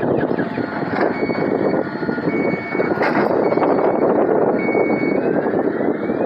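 Heavy earthmoving machinery running at a construction site, with a backup alarm beeping in steady pulses about once a second. A rising whine comes in near the end.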